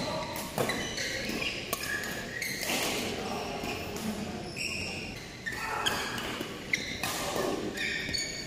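Indoor badminton play: sharp racket strikes on a shuttlecock at irregular intervals and short high squeaks of court shoes on the synthetic court mat, echoing in a large sports hall.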